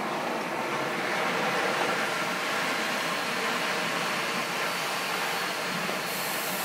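Liferaft self-inflating from its CO2 cylinder: a steady, loud hiss of gas rushing into the buoyancy tubes, growing brighter and sharper near the end.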